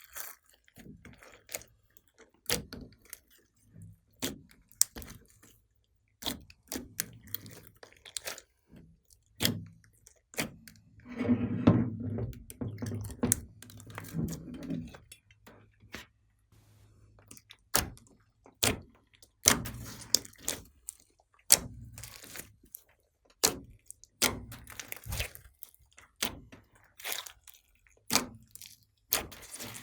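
Glossy slime being squished and worked by hand, giving irregular sticky pops and clicks, with a longer, louder squelching stretch partway through.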